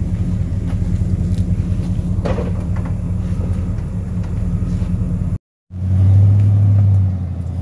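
Dually pickup truck's engine running steadily under load as it pulls a travel trailer forward over soft sand, a deep low drone. The sound cuts out for a moment a little over five seconds in, then comes back louder.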